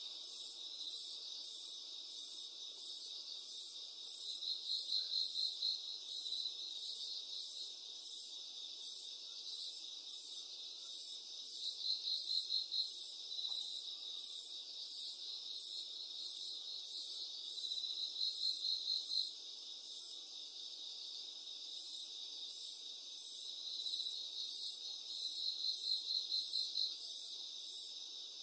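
Crickets chirping: a steady high trill, with a louder run of pulsed chirps about every six or seven seconds.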